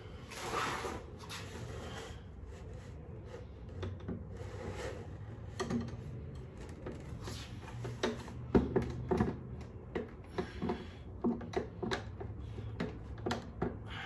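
Memphis Shades batwing fairing being handled and fitted onto its fork mounting brackets: a brief rustle and scrape about half a second in, then a run of irregular knocks and clunks as the fairing is pushed against the brackets, loudest a little past the middle.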